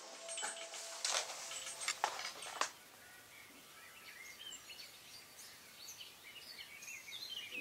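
A few sharp clicks and scrapes from working a stick in a small tub of paste. From about three seconds in, small birds chirp over a faint outdoor hiss.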